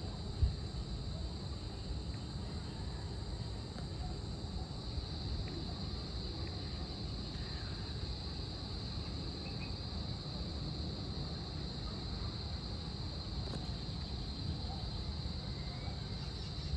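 Steady chorus of insects at dusk, a continuous high-pitched drone over a low, even rumble, with one soft thump about half a second in.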